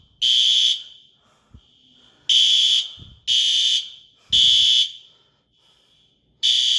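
Building fire alarm horns sounding the temporal-three (Code 3) evacuation pattern: three loud half-second beeps about a second apart, then a pause of about a second and a half, and the next group of three beginning near the end. Fainter beeps sound in the pauses.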